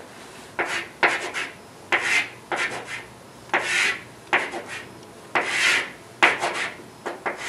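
Chalk drawing on a blackboard: a run of short scratchy strokes, about two a second, as lines and arrows are drawn.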